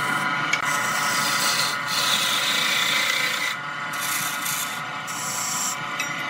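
Turning tool cutting a spinning wood blank on a lathe: a continuous rasping scrape of steel on wood over the lathe's running motor, easing off and getting quieter about three and a half seconds in.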